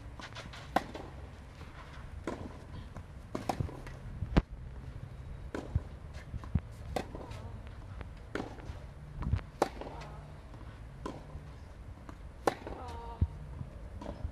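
Tennis rally on a clay court: sharp pops of racket strings striking the ball, alternating with softer ball bounces and shoe scuffs on the clay, at irregular intervals of a second or two.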